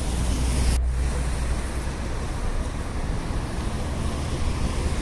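Steady city road traffic noise: a low rumble from vehicles on a wide multi-lane road.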